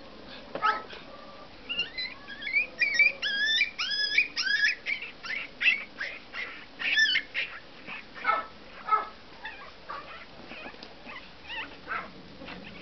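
Several small dogs playing, giving high yelping calls that swoop up and down in pitch in a quick, loud run through the first half, then scattered short yips and barks.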